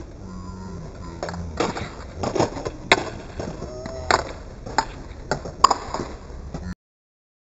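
Skateboard and shoes knocking on concrete: an irregular run of sharp clacks and thuds. The sound cuts off suddenly near the end.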